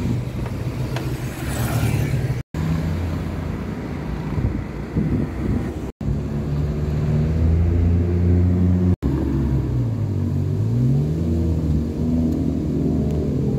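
Road vehicles' engines running as cars and motorcycles come round a bend, with one engine's pitch dipping and climbing again about ten seconds in. The sound breaks off for a split second three times where clips are joined.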